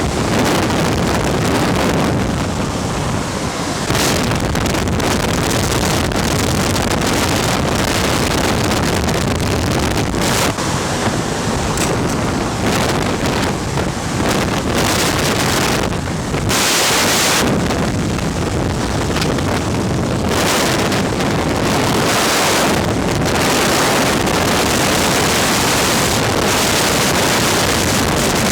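Strong rush of air driven by a megawatt VOD-40 mine ventilation fan, with wind buffeting the microphone in gusts that swell and ease every second or two.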